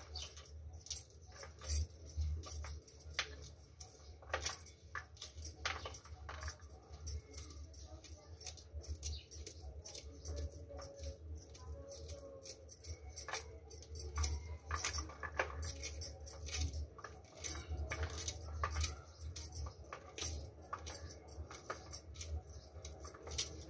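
Corn kernels being thumbed off the cob, clicking and ticking irregularly as they snap loose and drop onto a steel plate.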